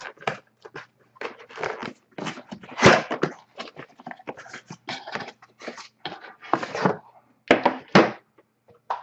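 Sealed packaging on a hockey card box being peeled and torn open: a run of irregular crinkling, scraping and ripping strokes.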